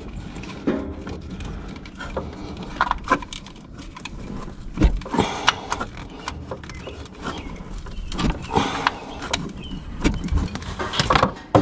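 A CAT spin-on fuel filter and its adapter being hand-tightened on the fuel filter housing: scattered clicks, scrapes and rubbing of hands on metal, with a few sharper clicks about five seconds in and near the end.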